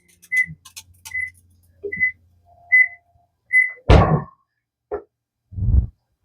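Microwave oven beeping five times, evenly spaced under a second apart, as it finishes heating. A faint hum stops partway through the beeps, then comes a loud thunk about four seconds in and two softer knocks.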